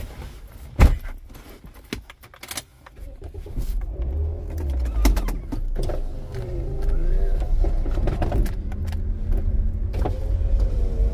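A car's engine and road rumble, a steady low drone that builds up from about four seconds in, after a sharp thump about a second in.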